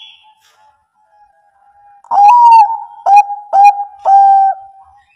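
Zebra dove (Bangkok-type perkutut) cooing: four loud notes starting about two seconds in, the first one the longest, over a faint steady tone.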